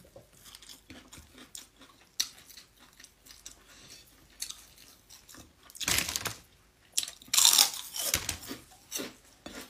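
A person chewing a mouthful of rice and vegetables, with small wet mouth clicks and crunches. There are two louder crunching, rustling stretches about six seconds and seven to eight seconds in.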